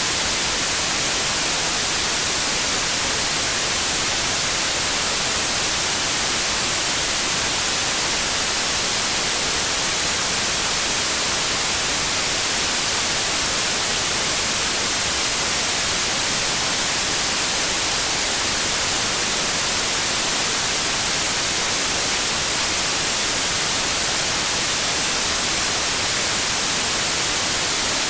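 Steady white noise for soothing a crying baby: an even, hissing static weighted toward the high end, unchanging throughout.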